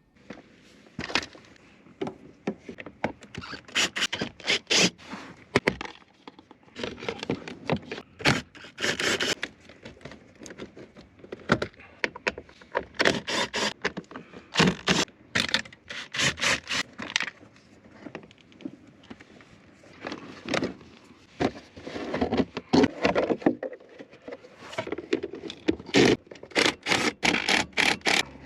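Hands working on a car's relay and its wiring: irregular plastic clicks, knocks and scraping as the parts are handled, unplugged and fitted, with no steady rhythm.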